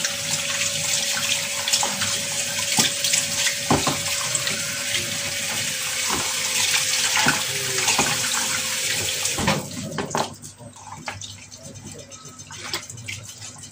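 Kitchen tap running into a sink as whole tilapia are rinsed and rubbed by hand under the stream. About ten seconds in the flow drops away, leaving small splashes and handling noises.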